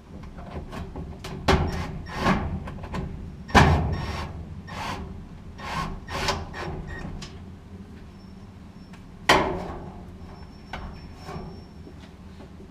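Irregular knocks, clunks and scraping from dryer parts being handled and fitted during reassembly, with three sharp, loud knocks standing out.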